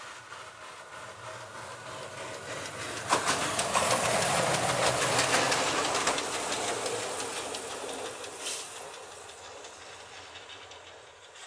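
ČSD class 310 ('Kafemlejnek') steam tank locomotive, number 310.072, passing at speed with exhaust beats, steam hiss and wheels clattering over the rail joints. The sound rises suddenly about three seconds in, stays loud for a few seconds, then fades as the engine draws away.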